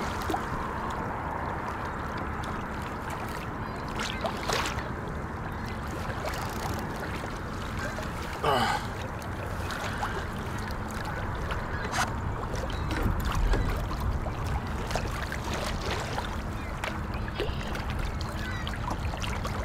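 Steady noise of water and wind around a fishing kayak on open water, with a few brief knocks or clicks from gear on the boat.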